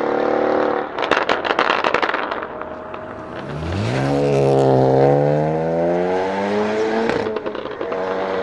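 Mercedes-Benz S63 AMG twin-turbo V8 with a decat exhaust and pops-and-bangs tune: a steady exhaust note breaks into a rapid burst of crackles and pops about a second in, then the engine pulls hard from about three and a half seconds with a rising note, popping again briefly near the end.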